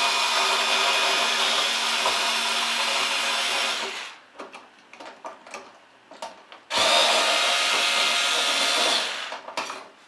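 Black+Decker cordless screwdriver running with a steady whine while backing out a light switch's mounting screws: one spell until about four seconds in, then a second of about two seconds starting near seven seconds in. Light clicks and handling sounds fall in between.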